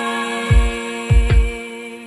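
Background music: sustained held chords over deep bass-drum hits, three in quick succession, with no singing.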